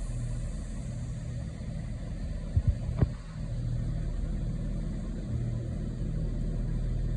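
Chiltern Class 168 Clubman diesel multiple unit standing at the platform with its underfloor diesel engines running steadily, a low hum. A few sharp knocks about two and a half to three seconds in.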